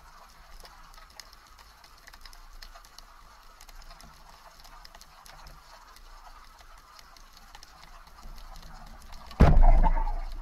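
Underwater ambience with scattered faint ticks, then, about nine seconds in, a sudden loud shot from a rubber-band speargun (Omer Cayman carbon rigged as an inverted roller gun) being fired, fading over about a second.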